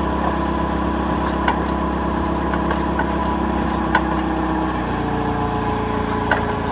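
Forklift engine idling steadily, its note shifting lower and fuller about five seconds in. A few short metallic clinks sound over it.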